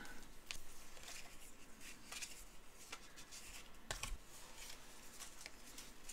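Trading cards being flipped through by hand: soft slides and small clicks of card stock against card stock, with a slightly louder tap about four seconds in.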